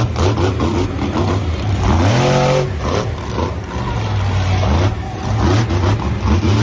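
Monster truck engine sound effect: a big engine running and revving, with a rise in revs about two seconds in. It starts and cuts off abruptly.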